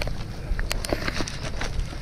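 Wind rumbling on the microphone over open water, with a few irregular sharp clicks or knocks.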